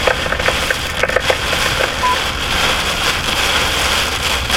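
Heavy rain pelting a vehicle's roof and windshield: a dense, steady crackling patter with no break.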